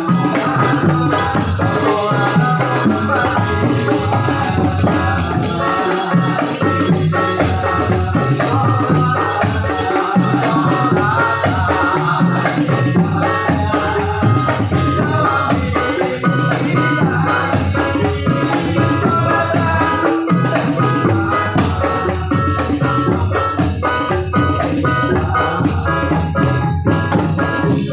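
Men singing sholawat, Islamic devotional songs, into microphones over a PA, over steady hand percussion with jingling rattles.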